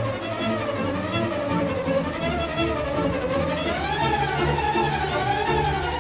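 Background instrumental music: a melody with a wide, wavering vibrato over held lower notes.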